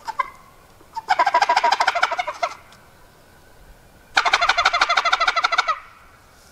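Hunter's gobble call sounded twice, each a loud, rapid rattling gobble about a second and a half long, imitating a tom turkey's gobble. A few faint clicks come just before the first one.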